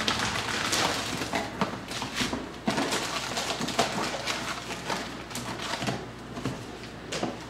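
Sealed baseball card packs being handled and stacked: a continuous crinkling of the wrappers with light knocks and clicks of the packs on the table.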